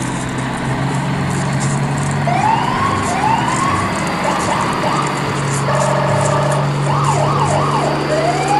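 Siren-like sound effect: short rising whoops, about one a second, a quick run of rising chirps and a held horn-like tone in the middle, over a steady low drone.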